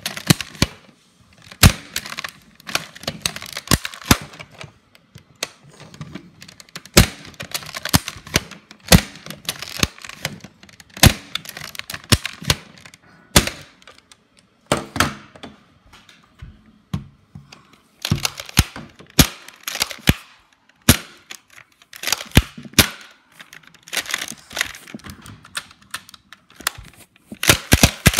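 Nerf foam-dart blasters being primed and fired again and again: sharp plastic clacks and snaps in irregular clusters, with short pauses between them.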